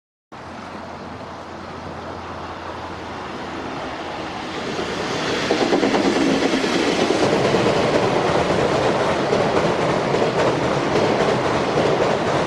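JR Freight freight train approaching at speed and passing close by. It grows louder over the first six seconds, then runs by loudly as a steady rush of wheels on rail.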